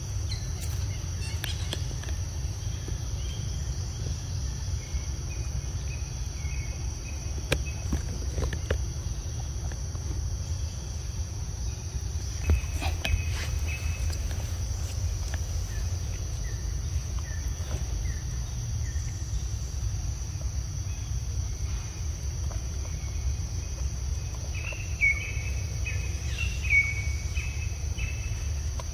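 Steady high-pitched drone of insects, over a low constant rumble. A few short high chirps come near the end.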